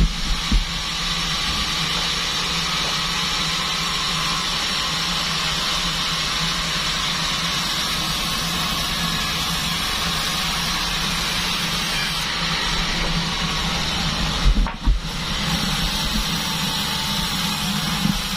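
Band sawmill running steadily, a constant hum with a hiss over it; about fifteen seconds in there are a couple of short knocks and a brief drop in level.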